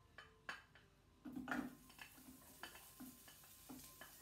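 Chopped onion scraped off a plate with a spoon into a hot pan to sauté: a couple of light clicks, then a louder clatter as the onion drops in about a second and a half in, after which it sizzles steadily while the spoon taps against the plate and pan.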